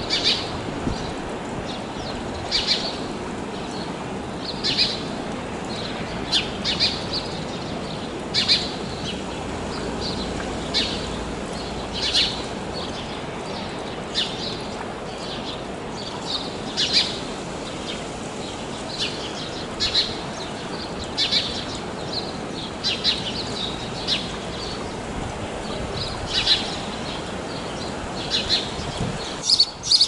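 House sparrow chirping: short, sharp single chirps repeated irregularly, about one every second or two, over a steady rushing background noise.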